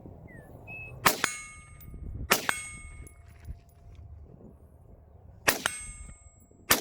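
Four gunshots in two pairs, the shots in each pair about a second and a quarter apart. Each shot is followed a split second later by a steel plate target clanging and ringing on for nearly a second, the sign of a hit.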